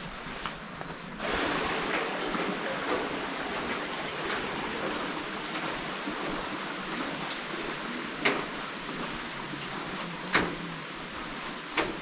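Tropical rainforest ambience: a steady high insect drone over an even rushing noise that swells about a second in. Three sharp metallic clanks near the end, footsteps on a steel-mesh hanging-bridge deck.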